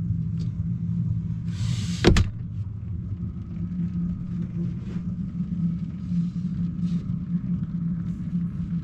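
Steady low rumble inside a camper van. About two seconds in, a short rush of noise ends in one sharp knock.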